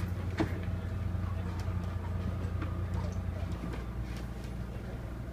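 A few light clicks and knocks as a speaker mounting bracket is fitted back onto a TV-lift cabinet, over a steady low hum that drops slightly about three and a half seconds in.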